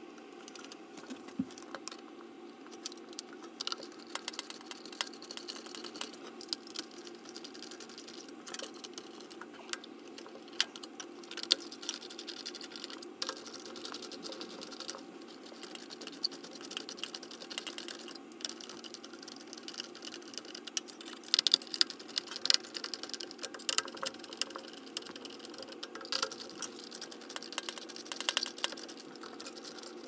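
Hand screwdriver tightening the four mounting screws of a CPU heatsink-and-fan cooler, with irregular small metal clicks and ticks over a steady low hum.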